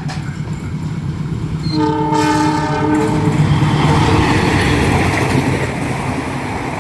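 A railway locomotive's S35 horn sounds one short chord blast, about a second and a half long, starting nearly two seconds in, over the steady rumble of the train. The rushing noise of the passing train then grows louder.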